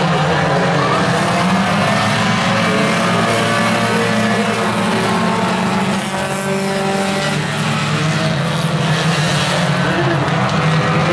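Engines of a pack of compact Tuner-class race cars running at speed around a short oval track. The engines overlap in a steady drone, with their pitches rising and falling as the cars go by.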